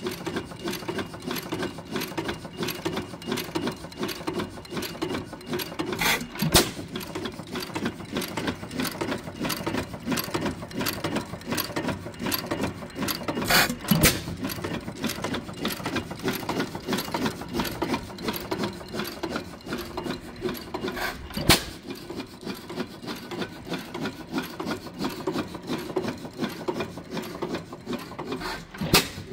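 12 hp Witte hit-and-miss engine running: a steady fast clatter of valve gear and spinning flywheels. A loud sharp bang comes about every seven to eight seconds as it fires.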